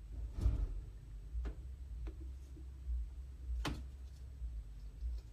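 A few sharp, scattered clicks and light knocks, about four in all with the loudest a little past halfway, over a low steady hum.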